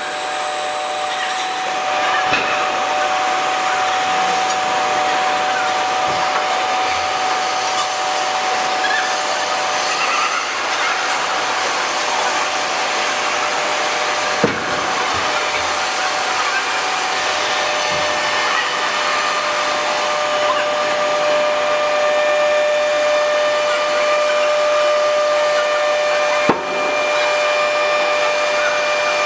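Steady forging-plant machinery noise with a whine held at a few fixed pitches, as from a large hydraulic press's power unit running. A sharp knock comes about halfway through and another near the end.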